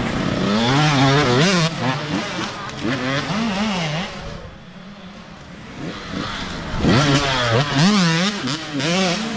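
Youth dirt bike engines revving up and down as bikes pass one after another. About halfway through it quiets as one bike moves off, then the next bike comes up, revving, and passes.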